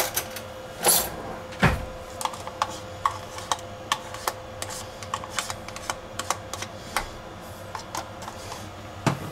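A spoon scraping and tapping crème fraîche out of a plastic tub into a frying pan: a run of small irregular clicks and taps, with a couple of louder knocks in the first two seconds. A faint steady tone runs underneath.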